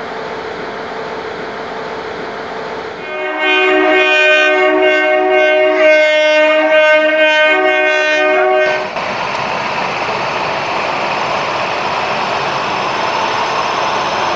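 Locomotive air horn sounding one long, loud multi-tone blast of about five seconds, over a steady hum; the horn is the departure warning given as the green flag is shown. After the horn stops, a steady rushing noise takes over and grows slowly louder.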